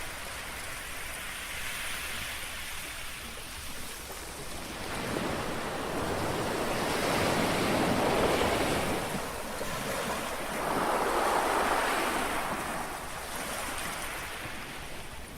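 Small sea waves lapping on the shore, a steady wash that swells and fades every few seconds, with a longer swell about halfway through and another near two-thirds of the way.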